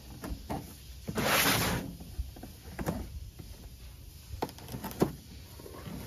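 Packing tape ripped off the lid of a cardboard box in one long pull about a second in, then a few short knocks and scuffs as the box is handled on a metal cargo bed.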